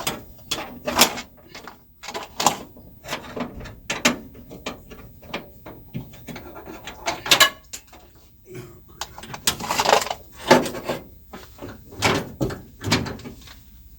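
Irregular metal clinks, knocks and scrapes as a steel seat-belt anchor plate is handled and worked against the sheet metal inside a 1966 Mustang's body, with a longer stretch of rattling and scraping about ten seconds in.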